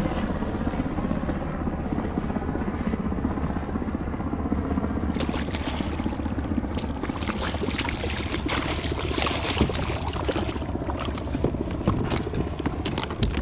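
Wind rumbling on a head-mounted camera microphone over moving water. From about five seconds in come many sharp splashes and clicks as a hooked bluefish thrashes at the surface beside the kayak and is lifted out.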